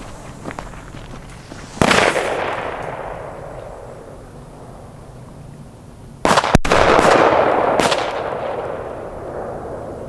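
Firecracker bangs: one sharp report about two seconds in, then a louder one about six seconds in with another just over a second later, each trailing off in a long rolling echo.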